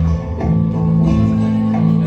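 Background music with plucked guitar-like notes over a steady bass line, the notes changing about every half second.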